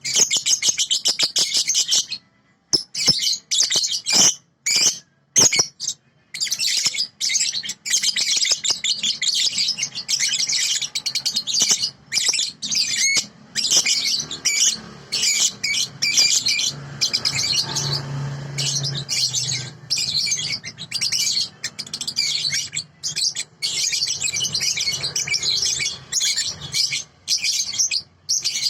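Young lovebird (balibu) chattering in long, rapid strings of high-pitched chirps, the continuous 'konslet' style of song, broken by a few short pauses in the first several seconds.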